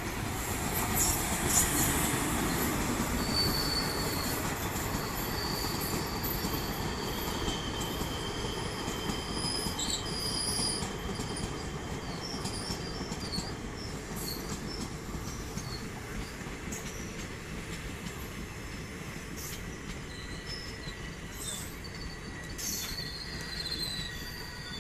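Passenger train of the 08312 Banaras–Sambalpur Intercity Special passing on the far track: a steady rumble of wheels on rail, loudest in the first few seconds as the locomotive goes by. Thin high wheel squeals come and go over it, with a few sharp clicks.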